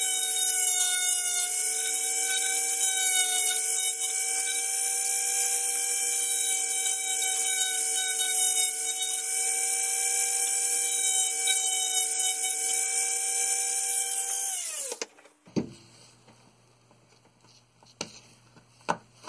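Small electric drill running with a steady whine as it bores a hole through a model's hull, then spinning down with a falling pitch about 15 seconds in. A few light clicks of handling follow.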